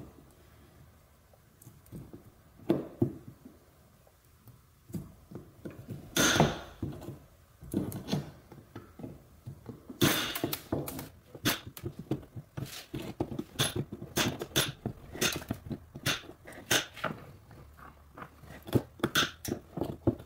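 Side cutters snipping off the protruding ends of metal plastic-repair staples: a series of sharp, irregular clicks and snaps, sparse at first and coming thicker from about halfway through.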